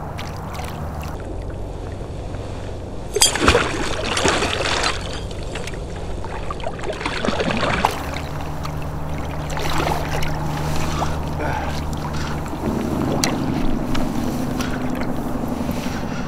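Water sloshing and slapping against a kayak's hull as a hooked musky tows the kayak, over a steady low rumble. A louder burst of splashing with sharp clicks comes about three to five seconds in.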